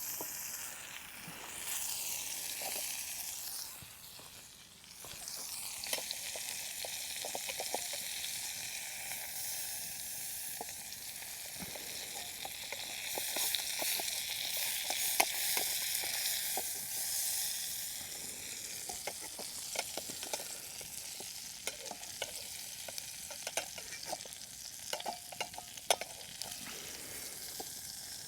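Steak sizzling in a frying pan: a steady hiss that dips briefly about four seconds in, with sharp spitting pops that come more often in the last several seconds.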